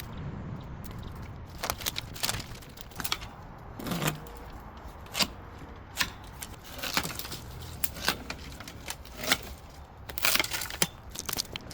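Dry branches and twigs cracking and crunching irregularly as cut brush is handled and walked on, with a denser run of snaps near the end.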